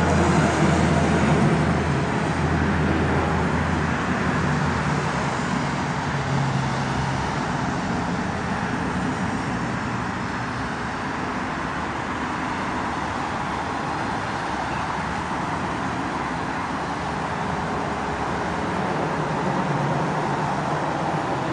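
Jet engine noise from a departing Airbus A320-200 climbing away after takeoff, a continuous rumble that slowly fades as the airliner recedes, its deepest part dropping away after about four seconds.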